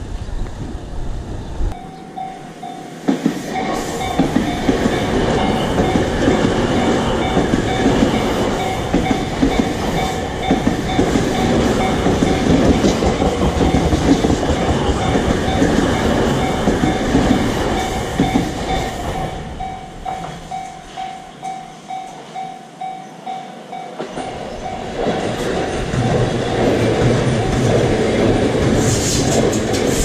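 A Tobu Tojo Line electric commuter train rumbling past at a level crossing, its wheels clacking over the rail joints. Through it the crossing's warning bell rings in a steady rapid pulse, fading out about 24 seconds in, and then another train's rumble builds near the end.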